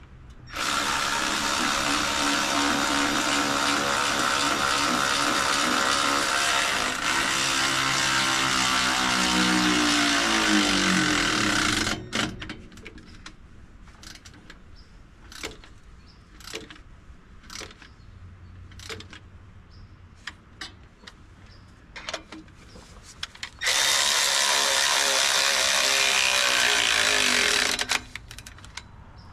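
A handheld power tool run in two long spells, about eleven seconds and then about four seconds. Each spell winds down with a falling whine when the trigger is released. Scattered clicks and clanks of tool and metal handling fall between the spells.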